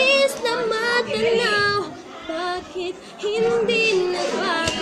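A girl's voice singing a slow melody, holding long notes with a slight waver, and softer for about a second midway.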